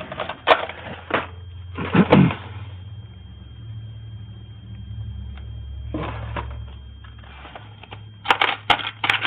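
Clicks and rattles of small metal hardware being handled off a store shelf: a few single clicks, a louder rattle about two seconds in and a quick cluster of clicks near the end, over a low steady hum that swells in the middle.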